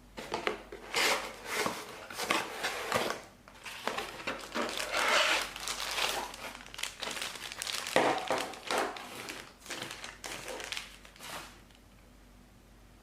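Plastic packaging crinkling and rustling in irregular bursts as the soldering station's accessories are handled and unwrapped, stopping near the end.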